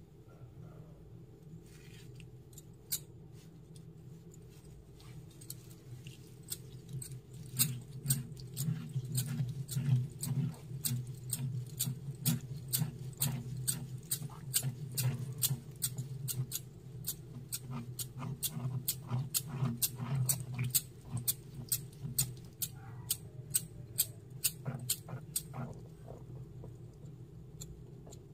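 Small pestle clicking against a miniature stone mortar as white batter is pounded and ground. A few scattered taps come first, then sharp clicks at about two a second from about eight seconds in until near the end.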